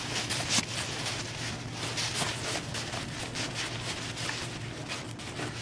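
A sleeping bag being stuffed by hand into a small nylon stuff sack: a continuous crinkly rustle and swish of fabric, with many small crackles as it is pushed down in handfuls.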